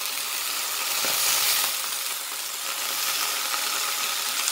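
Beet greens and chopped beet stems sizzling as they sauté in butter in a pan over medium heat, turned now and then with a spatula. A steady high hiss, swelling a little about a second in.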